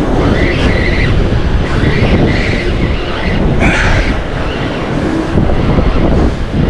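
Strong wind rumbling on an action-camera microphone over surf washing against the rocks, while a spinning reel is cranked to bring in a hooked fish.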